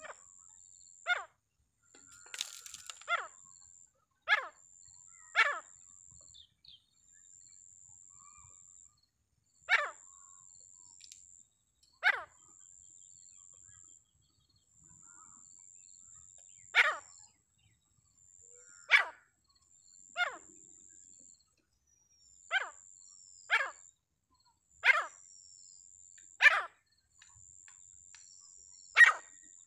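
A partridge (ram teetar) giving short, sharp single calls, one every one to two seconds, about fourteen in all. Under the calls runs a faint, high, steady whine that stops and starts.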